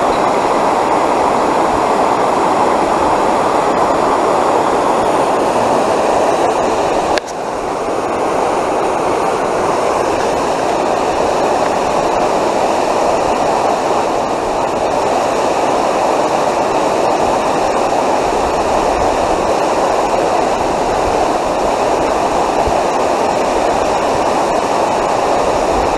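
Steady, loud rushing of water pouring through the outflow below the platform, unbroken apart from a brief dip about seven seconds in.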